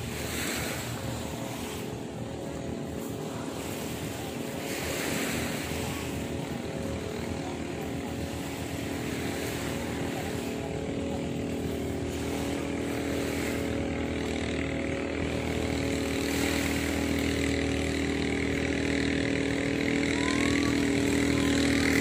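An engine running steadily at an even pitch, its hum growing louder toward the end.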